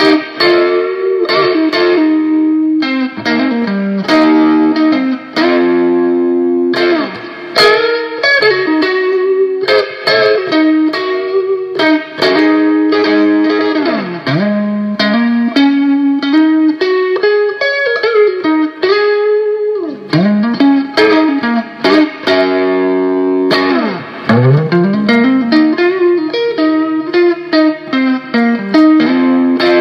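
A 1978 Greco Les Paul electric guitar with Iron Gear Blues Engine PAF-type humbuckers, played through a small NUX Mighty Air amp. It plays a blues-rock lead: runs of picked single notes and held notes with string bends, and several quick slides down the neck and back.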